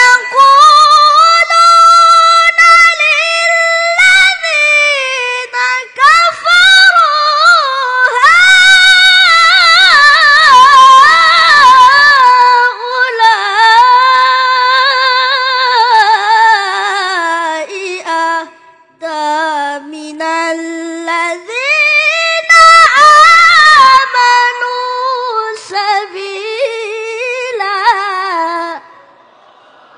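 A boy reciting the Quran in the melodic tilawah style, his high voice holding long, ornamented notes. About two-thirds through he takes a short break, sings a lower passage, then climbs high again, and the phrase ends shortly before the close.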